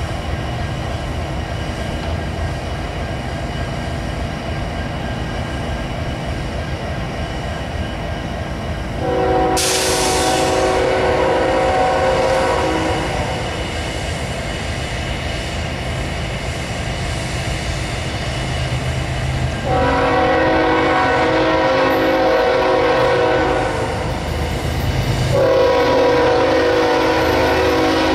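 Diesel locomotive horn sounding three long blasts, starting about nine, twenty and twenty-five seconds in, over the steady low rumble of diesel locomotives.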